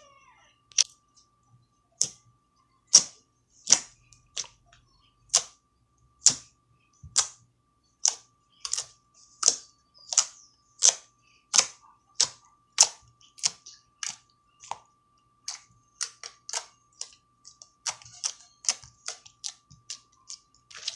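Slime being squeezed and pressed by hand for ASMR, giving a string of crisp popping clicks, roughly one or two a second, that come a little faster near the end.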